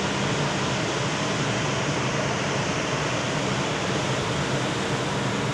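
Steady drone of a tanker ship's machinery and ventilation: an even rushing noise with a low hum underneath.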